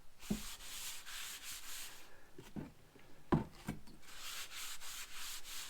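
A paper towel wetted with mineral spirits is rubbed briskly back and forth over a planed wooden board. The quick strokes come in two spells, with a few knocks in the pause between them.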